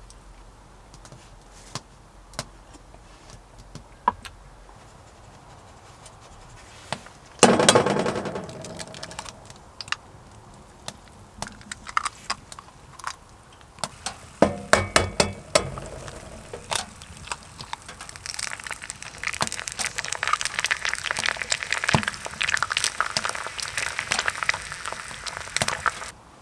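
Cooking on a wood stove: scattered clicks and knocks of cookware, a louder clatter about seven seconds in, another burst about halfway, then dense crackling for the last several seconds.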